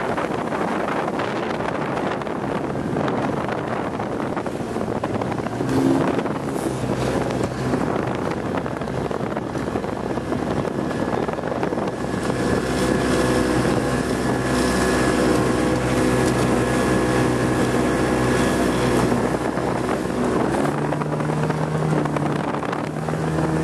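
Yamaha 80 hp outboard on a Fletcher GTO speedboat running at speed as the boat passes close. Its engine note comes in about halfway, holds loudest for several seconds, then fades. Wind buffets the microphone throughout.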